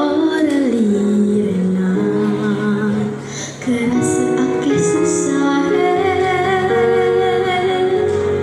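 A girl singing solo into a microphone over an instrumental accompaniment, gliding down between notes and holding long notes.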